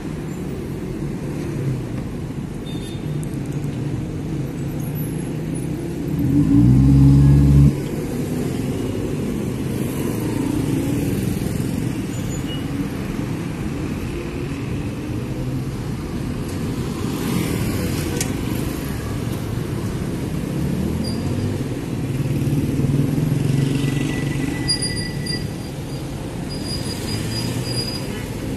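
Busy city road traffic: car and motorcycle engines running and passing in a steady low rumble, their pitch rising and falling. About six seconds in, a loud low-pitched blast sounds for about a second and a half and cuts off suddenly.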